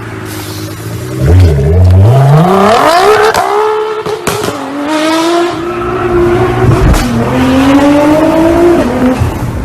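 Car engine accelerating hard through the gears: its pitch climbs steeply, drops at a gear change about four seconds in, climbs again, and drops at a second change about seven seconds in.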